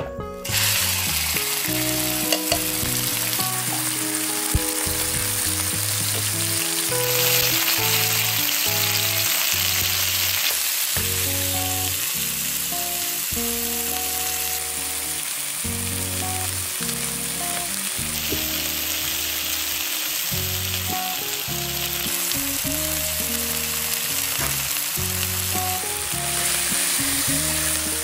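Minced meat sizzling steadily in hot olive oil in a nonstick pan, the sizzle starting about half a second in as the meat hits the oil. Background music plays underneath.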